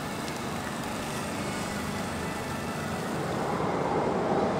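Steady road traffic on a city street, with a vehicle passing that grows louder near the end.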